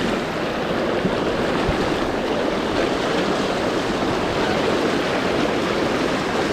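River water rushing steadily around the angler.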